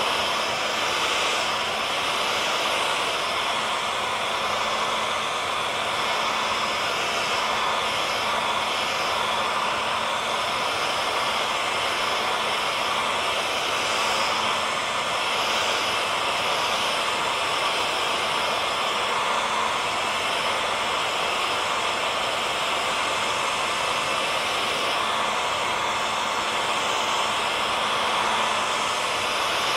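Hair dryer running steadily: an even blowing rush with a faint motor hum, unchanging throughout.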